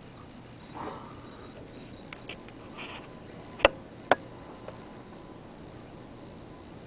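Quiet outdoor ambience with a faint steady high tone, broken by two sharp clicks about half a second apart a little past the middle and a few soft rustles.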